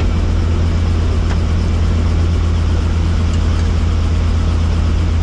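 Helicopter engine and rotor noise: a loud, steady drone with a strong low hum that does not change.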